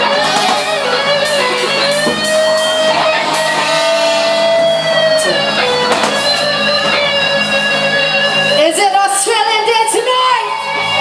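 Live band playing: electric guitar with drums, and a woman singing into the microphone.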